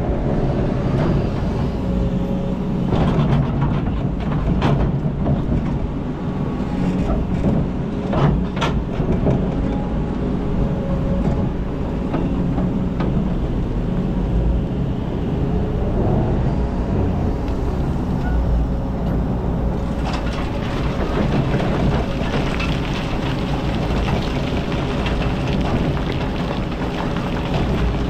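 Kobelco hydraulic excavator's diesel engine running steadily under load while its hydraulics work the arm and bucket through rock and earth. A few sharp knocks of the steel bucket against stone come in the first ten seconds.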